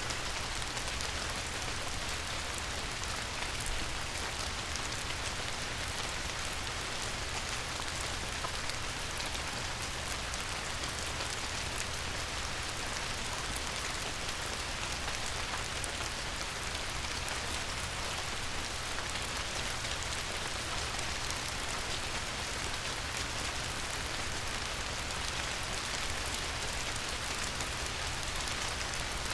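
Light rain falling on a river: a steady even hiss made of countless small drop ticks, over a constant low rumble underneath.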